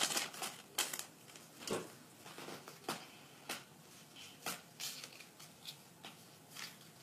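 Pokémon trading card booster pack being handled: faint, scattered rustles and crinkles of the foil wrapper and the cards as they are slid out and sorted.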